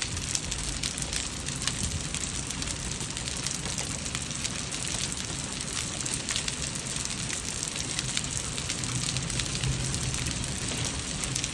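Heavy rain with quarter-sized hail pelting down: a steady hiss dotted with many sharp clicks of hailstones striking.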